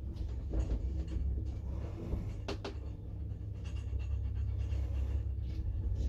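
1965 Fiam traction elevator in operation: a steady low rumble with a faint hum, and a couple of sharp clicks about two and a half seconds in.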